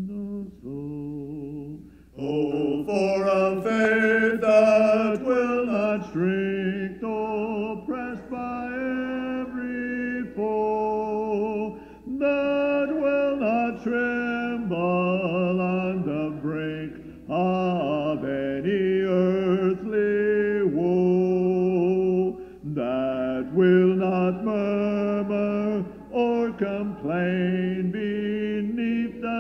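Mixed male and female voices singing a hymn a cappella in harmony, in held notes and phrases, with short breaks between lines.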